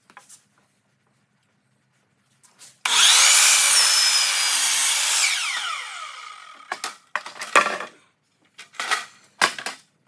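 Miter saw spinning up and cutting through a wooden board for about two seconds, then its blade winding down with a falling whine once the trigger is let go. Several sharp knocks of wood being handled follow.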